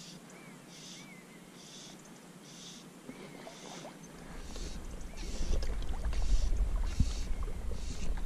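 Wind buffeting the microphone in gusts, starting about four seconds in and becoming the loudest sound. Under it, a faint high-pitched sound repeats evenly, a little less than once a second.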